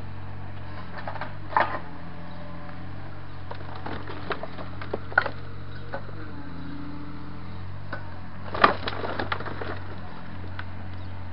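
Takeuchi mini excavator's diesel engine running steadily, with sharp knocks and rattles as the bucket works soil and rock on the backfill pile. Three louder knocks come near the start, midway and about three-quarters through.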